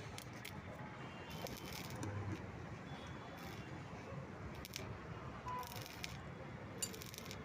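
Welding on a Royal Enfield BS6 silencer: short bursts of welding hiss, several in a row, as the loose inner pipe is tack-welded to the outer pipe to stop its metallic rattle.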